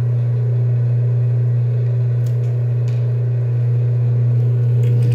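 Industrial sewing machine's motor humming steadily at idle, with the needle not yet running, and a couple of faint clicks from handling the fabric.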